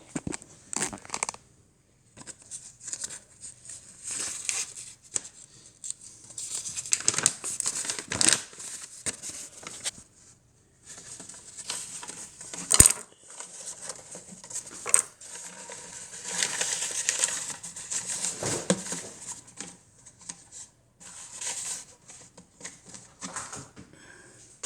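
Intermittent rustling and handling of coffee maker parts, with a few sharp clicks and knocks, the loudest about halfway through.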